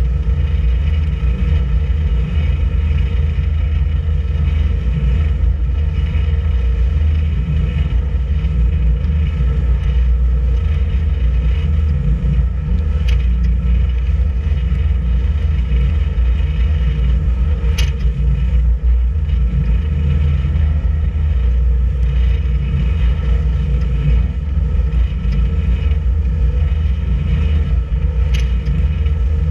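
Boat's engine running steadily under way, a loud, even low drone with a stack of steady tones above it. A few brief ticks are heard, twice around the middle and once near the end.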